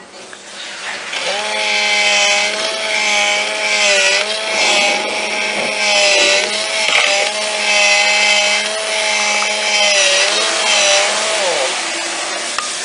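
Face Bank coin bank's small electric motor and gears whirring and buzzing as its rubber face works, chewing and swallowing a coin. The whine wavers in pitch with a gritty rasp that comes and goes, and drops in pitch near the end.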